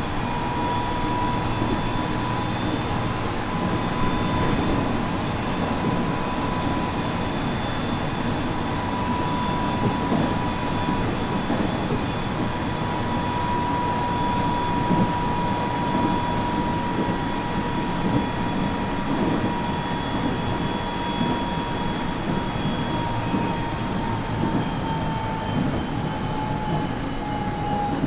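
Nagoya Municipal Subway 3050 series electric train running, a steady rumble of wheels on rail under a continuous high whine from its traction motor drive. The whine drops slightly in pitch near the end as the train begins to slow.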